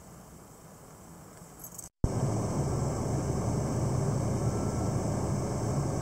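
Steady low hum and hiss of a running vehicle, starting abruptly at a cut about two seconds in; before the cut, a fainter steady hiss.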